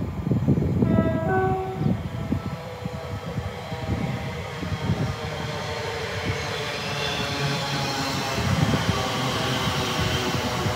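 Elizabeth line Class 345 electric train running in and slowing alongside the platform, its motor whine and rail noise growing as it draws near. A brief two-note horn sounds about a second in.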